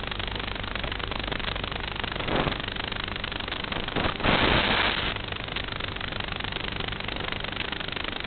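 Steady drone of an FPV model aircraft's motor and propeller in flight, with a short louder rushing swell about two seconds in and a longer one around four to five seconds in.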